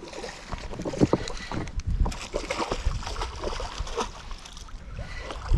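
Clothing rustling and knocking against the body-worn camera's microphone as the angler's sleeve brushes across it while he reels, with irregular small clicks and thumps.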